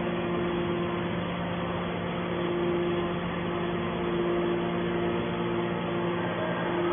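Hydraulic metal shavings baler running: a steady hum from its motor and pump, with a constant tone that fades in and out at times.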